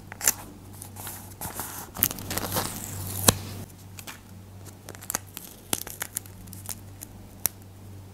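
Paper cutouts and stickers rustling and crinkling as they are handled and pressed onto a sketchbook page, with scattered sharp clicks of fingertips and nails; the handling is busiest in the first half, with the loudest click about three seconds in. A faint steady low hum runs underneath.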